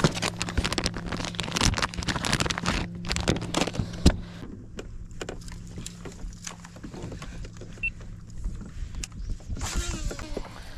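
Rattling and knocking of a lure and a just-landed striped bass being handled in a kayak, over a steady electric motor hum that stops about four and a half seconds in. The clicks are thickest in the first half and thin out after.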